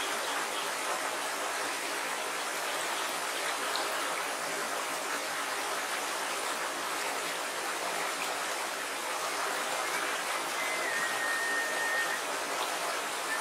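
Small, shallow, rocky river flowing over stones: a steady rush of water, with a thin high whistle held for just over a second near the end.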